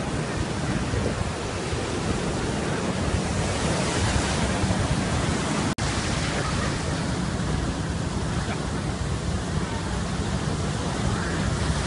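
Heavy storm surf rushing in and breaking against an eroding sandy shore, a steady dense roar of water; the sound cuts out for an instant about six seconds in.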